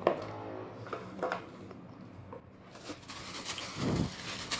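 Handling noises: a click, a few light knocks, then a short crinkle of a plastic bag being handled around a wrapped speaker part near the end.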